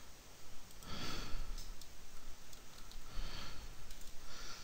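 A person breathing in through the nose close to the microphone, twice: about a second in and again past three seconds, with a few faint clicks.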